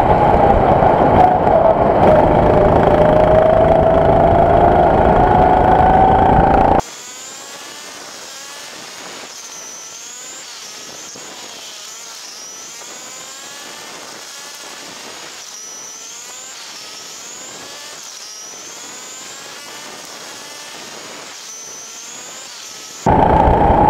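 Go-kart engine running hard, its pitch dipping and then climbing as it accelerates. About seven seconds in the sound abruptly drops to a much quieter, thinner engine whine with repeated rising and falling pitch sweeps, and the loud engine cuts back in abruptly near the end.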